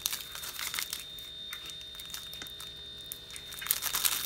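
Plastic wrapper of a packaged disposable syringe crinkling and rustling as it is handled, with light scattered crackles that get busier near the end.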